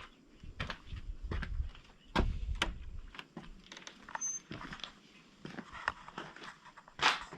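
Footsteps and handling noise: irregular knocks, clicks and crunches, with heavier thuds in the first few seconds.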